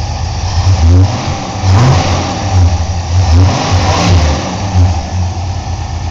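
Chevy S-10's 2.8-litre V6 with a Holley 390 cfm four-barrel carburetor and a Flowmaster 40 series muffler, idling and revved in about six quick throttle blips, each rising and falling back. The engine is still cold.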